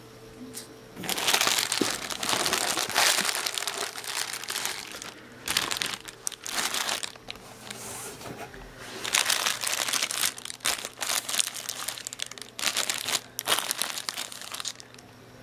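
Clear plastic packing bag crinkling in repeated bursts of handling as it is pulled out and opened.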